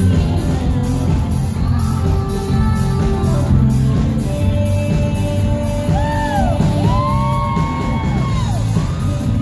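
Live indie pop band playing, recorded from the audience: heavy drums and bass with keyboards. In the second half a woman sings long held notes that bend up and down.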